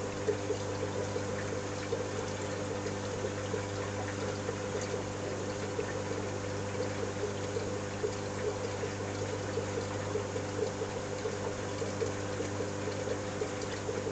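Marine aquarium's water circulation: a steady pump hum under a continuous trickle and splash of moving water, with small irregular splashes throughout.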